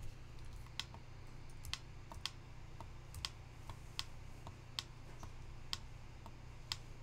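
Computer keyboard keys clicking one at a time, about a dozen irregular presses, over a low steady hum.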